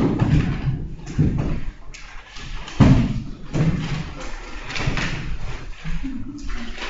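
Irregular thumps and knocks with rustling between them as papers and objects are handled and set down on a wooden conference table; the loudest thump is right at the start.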